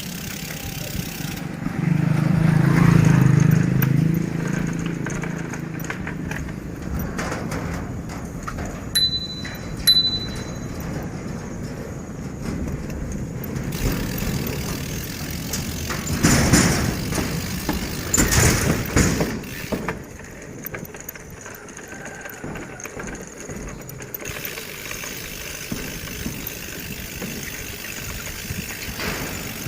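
Road and wind noise while riding a bicycle, with a motor vehicle passing near the start and louder passing traffic a little past the middle. Two short high chirps sound about a third of the way in.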